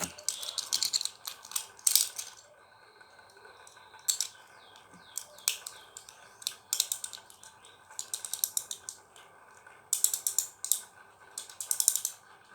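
Cord being wound tightly round a gasing spinning top by hand: short, irregular scratchy rasps in clusters, like a ratchet.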